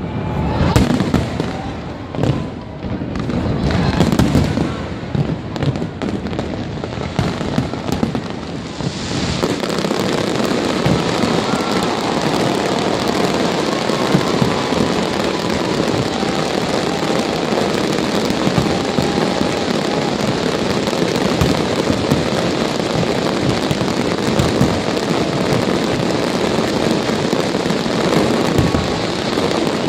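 Fireworks going off: a series of separate bangs for the first several seconds, then from about nine seconds in a dense, steady, continuous crackle.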